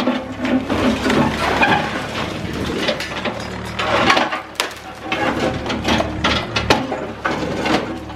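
Cat 305E2 mini excavator's diesel engine running steadily while its bucket breaks up a reinforced concrete building: irregular crunching, cracking and scraping of concrete and rebar, with sharp knocks of falling chunks twice in the second half.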